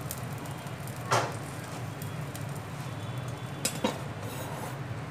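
Pakodas being added to a pan of simmering kadhi: a soft plop about a second in and two quick knocks against the pan near the end, over a steady low hum.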